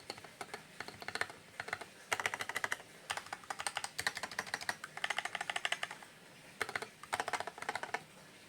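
Fantech MaxFit61 mechanical keyboard being typed on fast, in short bursts of rapid keystrokes with brief pauses between them.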